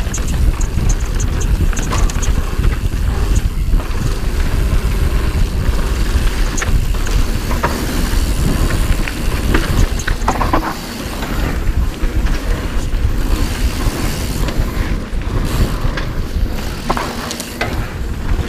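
Mountain bike riding down a dirt trail, heard from a camera on the rider's chest: a continuous low rumble of wind on the microphone and tyres on dirt, with scattered clicks and rattles from the bike.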